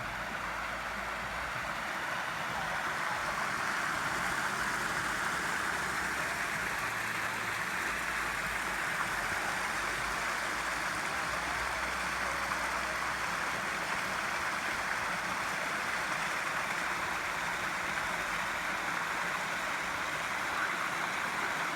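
Steady rushing of a flowing stream, an even wash of water noise without a break.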